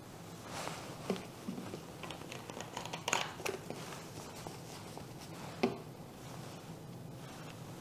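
Thin plastic PET bottle being handled: light crinkles and taps, a cluster of crackles about three seconds in, and one sharp knock shortly before six seconds as it is set down on the bench.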